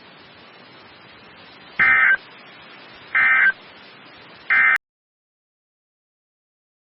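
Three short bursts of EAS digital data tones, each about a third of a second and spaced roughly a second and a half apart over faint hiss: the end-of-message code sent when an emergency alert finishes. The audio then cuts to dead silence, and a longer data burst, the header of the next alert, starts right at the end.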